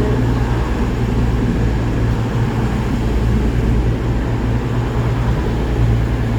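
A large diesel engine idling nearby with a steady low hum that does not change.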